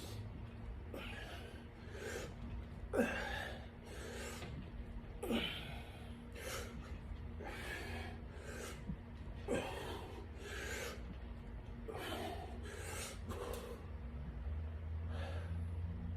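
A person breathing hard in short, quick breaths through mouth and nose, one or two a second, with a sharper, louder exhale every few seconds: the effortful breathing of someone working through exercise reps such as sit-ups.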